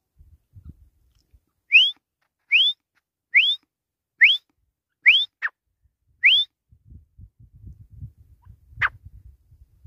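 Grey francolin calling: a series of six loud, shrill, rising whistled notes, about one every 0.8 s. A single short, sharp note follows near the end.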